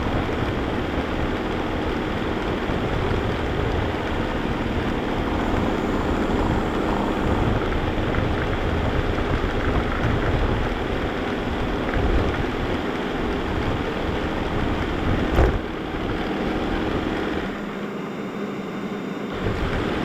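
Vacuum cleaner running steadily, heard close up from a camera riding on the machine: a continuous motor drone with a steady hum. There is one sharp knock about fifteen seconds in, and the low rumble thins out for a couple of seconds near the end.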